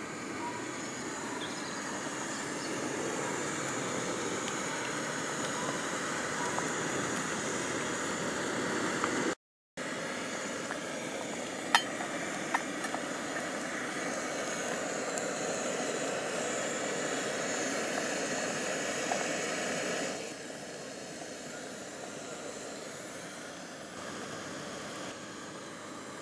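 Coleman 533 pressurised liquid-fuel stove burning with a steady rushing hiss under a saucepan, with a sharp metal clink about twelve seconds in. The hiss breaks off for a moment before the middle and drops in level about twenty seconds in.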